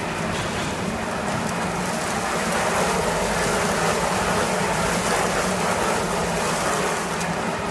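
Snack pellet frying machine running: a steady hiss over a low motor hum.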